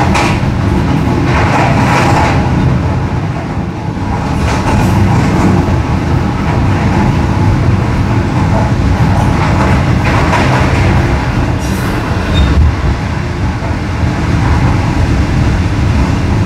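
Green Line Express passenger train running, a loud steady rumble of wheels on the track.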